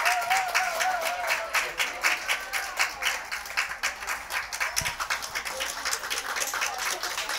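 Spectators clapping rapidly and steadily, with a wavering call in the first second.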